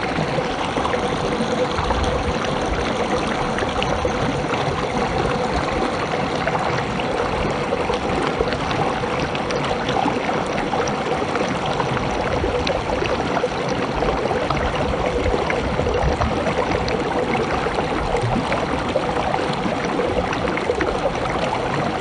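A fast, shallow river rushing over rocks and stones, with a steady, even sound of running water.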